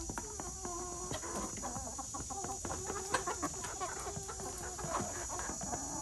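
A flock of chickens clucking in short, low notes while feeding, with frequent sharp clicks of beaks pecking at the feed tray and ground.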